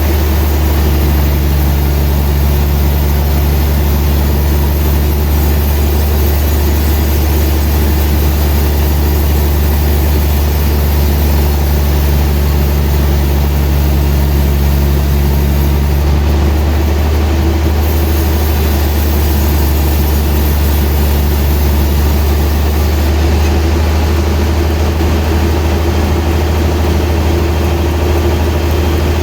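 Sawmill machinery running with a loud, steady low hum. A higher tone in the hum drops out a little past halfway.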